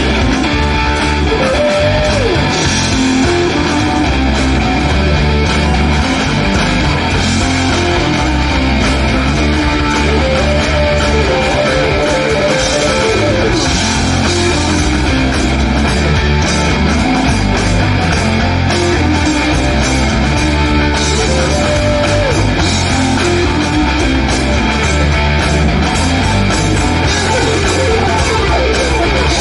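Live rock band playing on electric guitars, bass guitar and drum kit.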